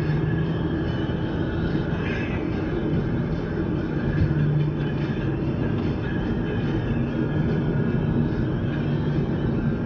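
Steady cabin drone of a car cruising on the highway: tyre roar and a low engine hum that swells and eases slightly, heard from inside the car.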